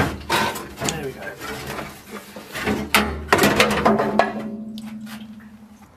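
Classic Mini's steel fuel tank being wiggled out through the boot opening: metal scraping and knocking against the bodywork. A sharp knock about three seconds in is followed by a ringing tone that fades out near the end.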